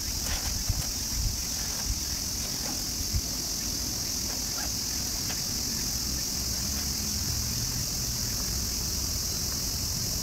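Steady, high-pitched chorus of insects chirring in the surrounding woods. A few soft knocks and rustles in the first few seconds come from a backpack being packed.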